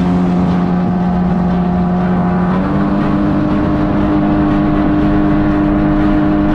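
Jet ski engine running steadily under way, with rushing wind and water; its pitch steps up slightly about two and a half seconds in.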